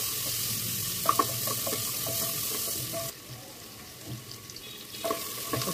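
Sliced onions sizzling in hot oil in a pressure cooker, with a wooden spatula stirring and knocking against the pot a couple of times about a second in. The sizzle drops away for about two seconds from about three seconds in, then comes back.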